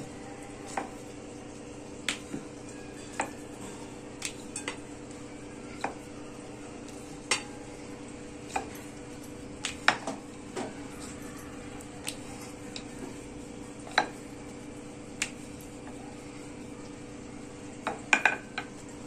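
Wooden rolling pin rolling out a disc of momo dough on a rolling board, with irregular light knocks and clicks as the pin meets the board, and a quick cluster of knocks near the end. A steady low hum runs underneath.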